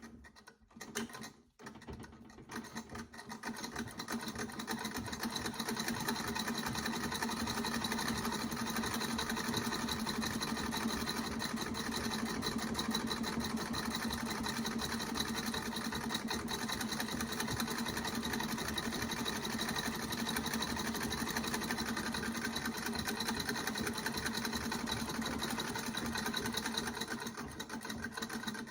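1899 Singer treadle sewing machine running: it picks up speed over the first few seconds, then runs at a steady, fast clatter and stops near the end.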